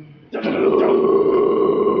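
A man's deathcore-style growled scream, sung a cappella: one long, harsh vocal growl that starts about a third of a second in.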